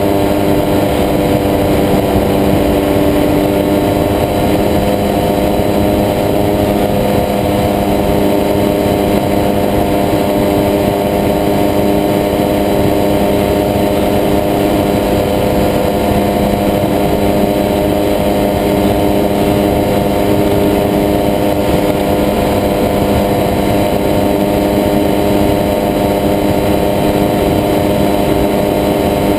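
Engine of a weight-shift microlight trike running steadily in cruise flight, a constant drone that holds the same pitch throughout.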